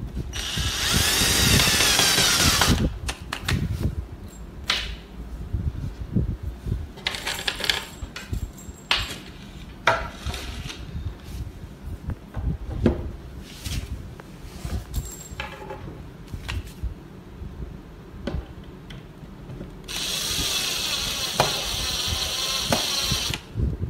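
Cordless drill-driver driving a screw into a particleboard panel for about two seconds, its pitch shifting as the screw goes in. A run of clicks and knocks follows as panels and fittings are handled. Near the end a second screw is driven for about three and a half seconds.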